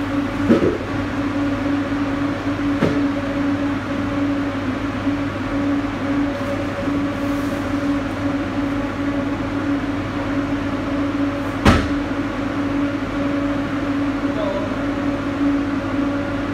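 Refrigerated delivery truck's machinery humming steadily inside the insulated cargo box, with a few knocks as crates and boxes are handled and one sharp thud near the middle.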